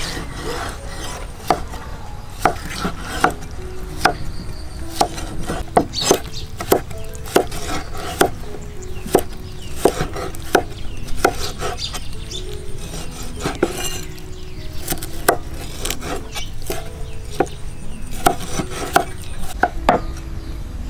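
Cleavers chopping on a thick round wooden chopping block, cutting cucumber and pork liver: irregular sharp knocks of blade on wood, about one or two a second.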